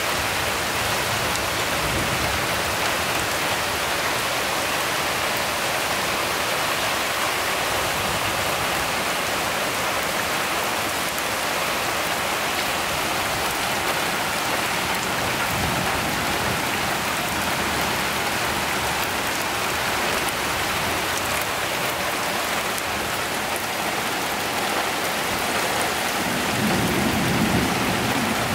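Steady rain falling on leaves and roofs, a dense even hiss, with a short low rumble near the end.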